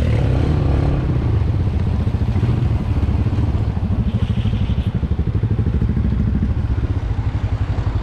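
Motorcycle engine running steadily at low revs with an even, low pulsing beat.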